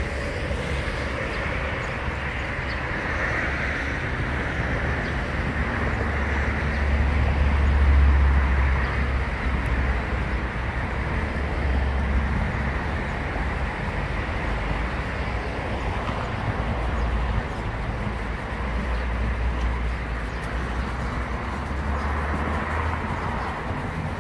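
Steady low rumbling outdoor noise that swells about eight seconds in.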